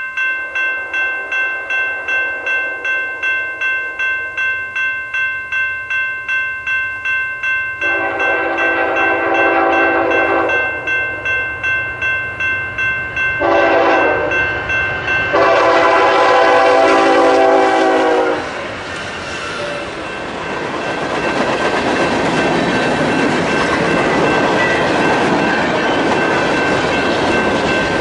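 A BNSF freight train's diesel locomotive sounds its air horn in three blasts: a long one, a short one, then a long one. After that the train's freight cars roll past, with steady loud wheel-on-rail noise and clickety-clack. Under it all a bell rings about twice a second, plainest before the horn starts.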